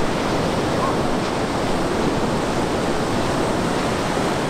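Ocean surf washing onto a sandy beach: a steady, even rush of waves.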